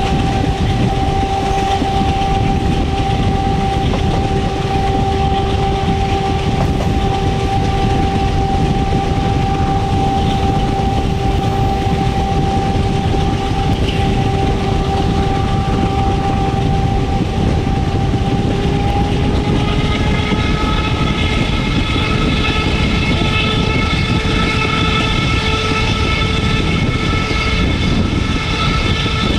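A train hauled by a WDM-3A diesel locomotive running, with a dense rumble and a steady whine throughout. About 19 seconds in the whine rises a little in pitch and gains more tones.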